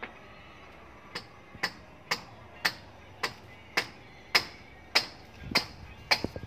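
Sharp clicks repeating steadily about twice a second, starting about a second in.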